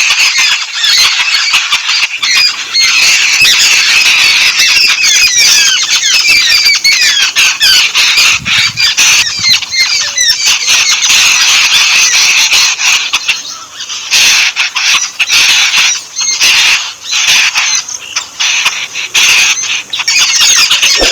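A flock of yellow-billed babblers chattering: a dense, continuous mass of harsh, squeaky calls, with a few short breaks in the second half.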